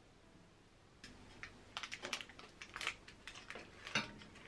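Kitchen handling clatter: a quick, irregular run of light clicks and knocks, with the loudest knock about four seconds in as a ceramic baking dish is set down on a gas stove's grate.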